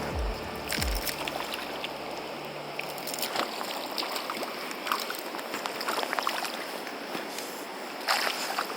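Mountain stream flowing steadily, with a few sharp clicks and knocks scattered through and the loudest cluster of them near the end. The tail of background music fades out in the first couple of seconds.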